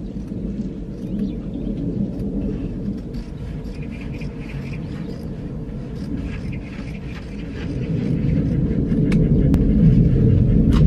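A steady low outdoor rumble that grows louder about eight seconds in, with faint snips and scratching of scissors cutting a sheet of black felt.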